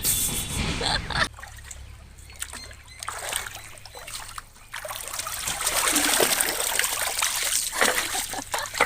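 Shallow pond water splashing and sloshing, with trickling, as someone works in it to catch fish. It is irregular, with a brief burst at the start, and it gets busier and louder over the last few seconds.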